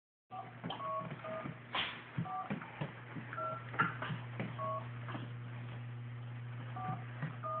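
Toy cell phone beeping as its buttons are pressed: about eight short two-tone, touch-tone-like beeps at uneven intervals, with a pause in the middle and small clicks between them.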